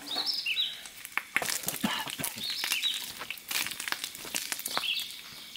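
A songbird sings a short phrase that steps downward, repeated about every two seconds. Close over it come sharp crinkling and clicking as bacon strips are handled on a sheet of paper.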